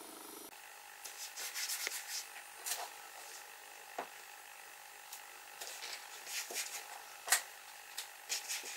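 Masking tape being handled and peeled from a pine board panel by hand: quiet, irregular crackling rips, with a couple of light taps on the wood.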